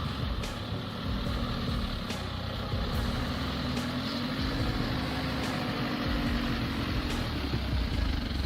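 A large engine of a heavy machine or truck running steadily. Its pitch rises a little and settles back partway through.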